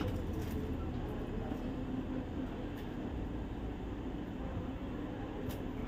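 Steady low background rumble, with a few faint light clicks.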